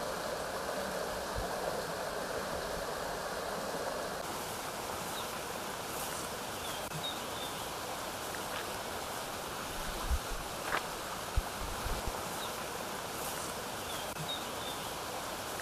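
Mountain stream rushing over rocks, a steady wash of water noise, a little louder in the first few seconds. A few faint high chirps and a few soft low knocks about two-thirds of the way through.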